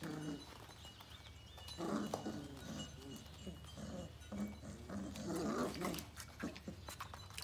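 Sheepadoodle puppies play-fighting, giving short growls and yips in bursts.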